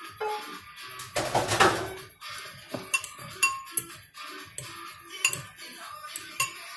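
A metal fork clinking and scraping against a ceramic bowl as ramen noodles are stirred, with a louder clatter of the frying pan being moved about a second in.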